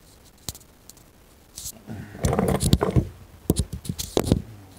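Handling noise from a phone being picked up and moved: a few faint clicks, then from about two seconds in a quick run of rubbing, knocks and scrapes close to the microphone.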